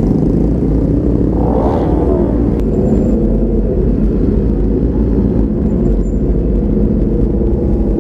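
Motorcycle running on the road, heard from a rider-mounted GoPro: a steady low engine rumble mixed with wind on the microphone, with a brief rise and fall in pitch about two seconds in.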